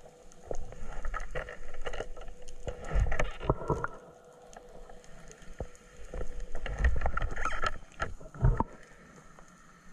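Underwater sound of a diver moving through the water: two spells of rushing, sloshing water with clustered clicks and knocks close to the camera, the first over the first four seconds and the second starting past halfway, with a faint steady tone underneath.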